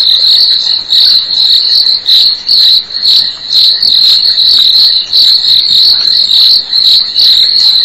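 A loud, continuous night chorus of chirping insects: a shrill high trill that pulses and dips briefly every second or so.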